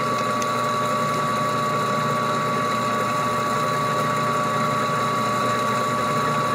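3D-printed plastic bevel gears and the machine driving them running steadily, with a wrench pressed against the small pinion to load it and rub its plastic teeth. A constant whine sits over a steady mechanical hum.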